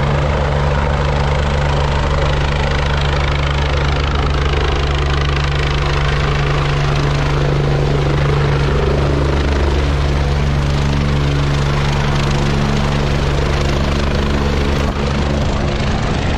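Helicopter landing close by, its rotor and engine running loud and steady, while the rotor downwash blasts wind and dust past the microphone.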